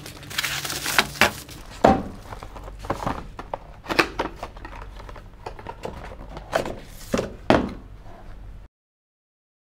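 Unboxing noise: a cleaver blade slicing the packing tape on a cardboard box, then cardboard flaps and a thin product box being pulled open and handled, with scattered knocks and thunks. The sound cuts off abruptly near the end.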